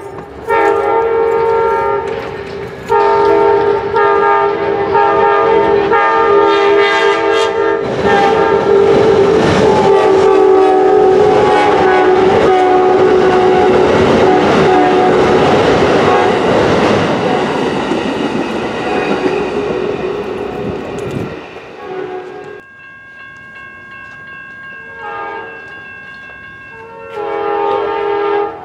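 Amtrak passenger train's diesel locomotive sounding its horn in long blasts, then the train passing close by with wheel clatter and rumble that fade after about twenty seconds.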